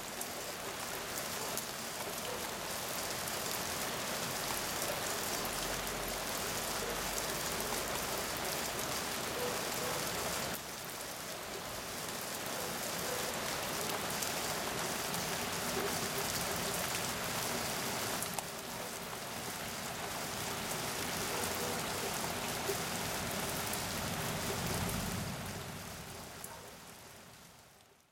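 Heavy rain falling in a steady, dense hiss, with low thunder rumbles about six seconds in and again near the end. The hiss drops suddenly twice, about ten and eighteen seconds in, and fades out at the close.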